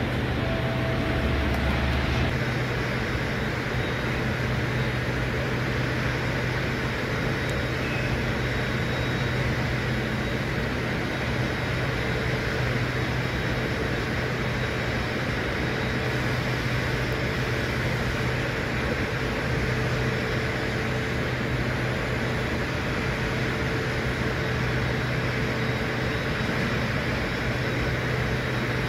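A steady low mechanical hum over an even rushing noise, unchanging.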